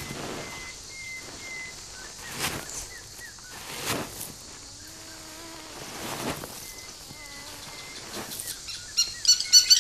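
A Nile crocodile digging at its nest, with several separate scrapes of sand, and faint wavering calls from crocodile hatchlings in the nest between them. Near the end comes a loud, rapid run of high chirps.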